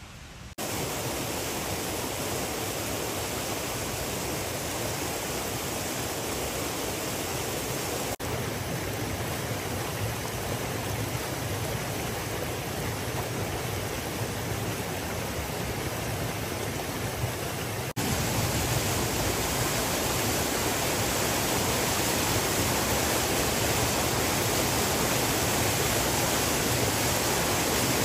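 A fast, shallow spring-fed stream rushing over stones: a steady, even rush of water that steps up louder about two-thirds of the way in.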